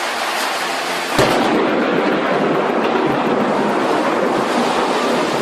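Rain hissing steadily, then about a second in a sharp crack of thunder from a close lightning strike, running on as a loud crackling rumble.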